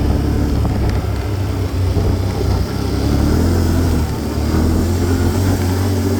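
An engine running steadily, a low drone with no change in speed.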